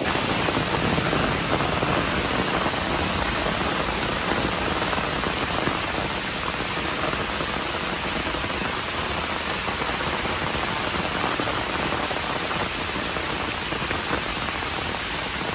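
Heavy rain falling steadily on a flooded, muddy trail and the leaves around it: an even, unbroken hiss of drops hitting standing water.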